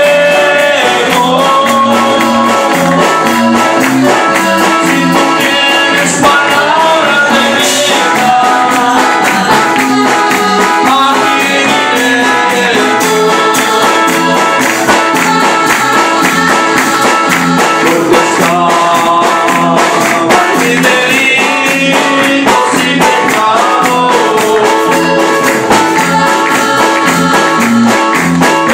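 Live worship music: a man singing into a microphone over electric bass guitar and drums, with a steady beat throughout.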